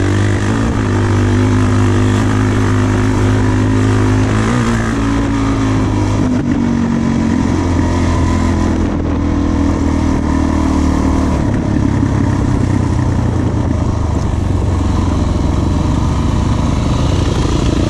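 Trail motorcycle engine running under way at low speed, its note shifting in pitch a few times as the throttle changes, over a steady rushing noise.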